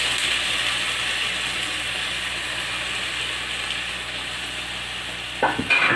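Prawns frying in oil in a pot, a steady sizzle that slowly dies down as tomato-onion paste is poured over them. Near the end come a few sharp knocks.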